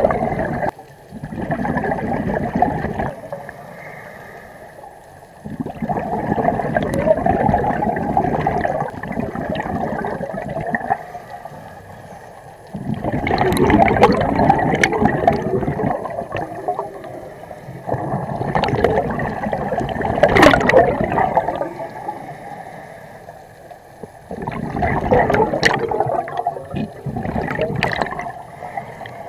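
Scuba diver's breathing through a regulator underwater: exhaled air bubbling out in gurgling bursts of a few seconds each, with quieter pauses between breaths.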